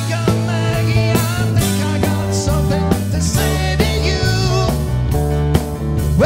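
A rock band playing an instrumental passage: a lead line with bending notes over bass and drums.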